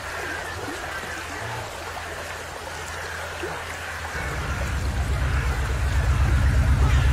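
Water trickling and dripping over a low steady hum. About four seconds in, a low, fast-pulsing bass drone swells in and keeps growing louder.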